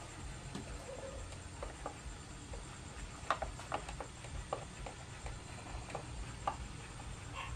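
Irregular small clicks and taps of plastic wiring connectors and clips being handled and pulled on a motorcycle under its lifted fuel tank, over a low steady hum.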